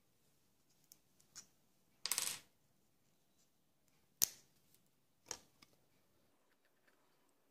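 Faint small plastic handling sounds as a Loctite Super Glue tube is uncapped and worked against a battery's plastic top cover: a brief scraping rustle about two seconds in, then two sharp clicks about a second apart.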